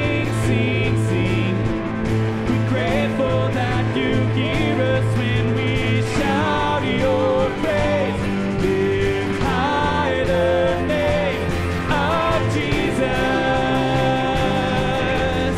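A live worship band plays and sings: lead vocals with vibrato over acoustic guitar, electric bass and drums.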